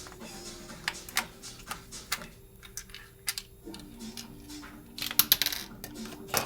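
Irregular small clicks and taps of hard plastic and metal parts of a Crosman C31 BB gun being handled during disassembly, with a quick run of clicks about five seconds in.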